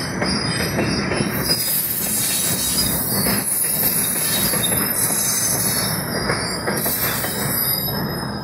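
Freight train of tank cars rolling past on a curve: a steady rumble of steel wheels on rail with high-pitched wheel squeal that comes and goes.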